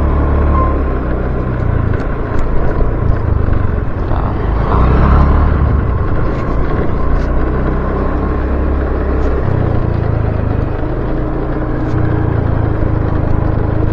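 Motor vehicle engine running while travelling along a road, a steady low rumble whose note shifts a couple of times as the speed changes.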